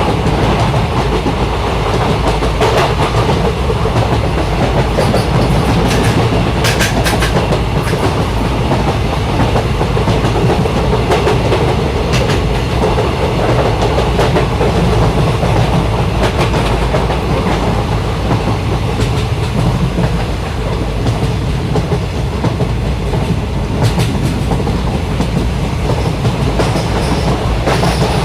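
Passenger train coach running along the track: a steady rumble with the clickety-clack of the wheels over the rail joints, and sharp clicks at uneven intervals.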